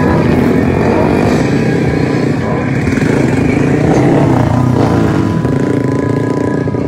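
Motorcycle engines revving and running at high revs, loud and continuous.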